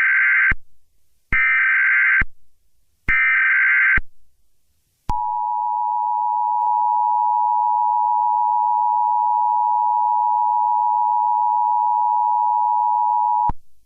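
Emergency Alert System tones. First come three short bursts of buzzing SAME header data, each just under a second and about a second apart. Then the two-tone EAS attention signal holds steady for about eight seconds and cuts off sharply, announcing the start of a new alert message.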